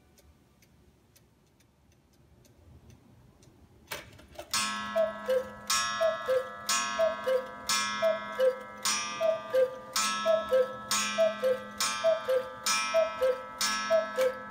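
August Schwer Black Forest cuckoo clock: faint ticking of the movement, then a click about four seconds in as the strike starts. A string of two-note falling cuckoo calls follows, about one a second, each with a sharp ringing strike, as the clock sounds the hour.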